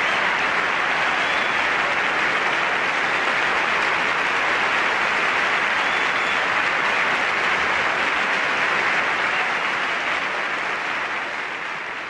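Large theater audience applauding, a steady dense clapping that begins to fade near the end.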